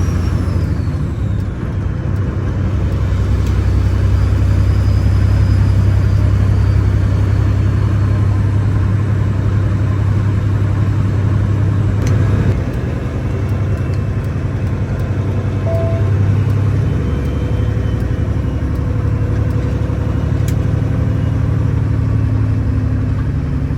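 Kenworth W900 semi truck's diesel engine running with a steady low drone.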